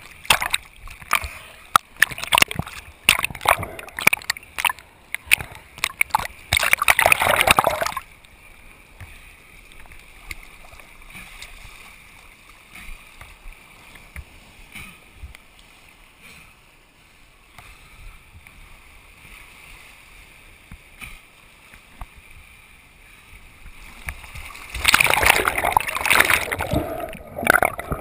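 Water splashing, sloshing and bubbling around a waterproofed action camera in rocky surf, heard muffled through its housing. It is loud and choppy for the first several seconds, drops to a faint wash for a long middle stretch, and turns loud and choppy again near the end.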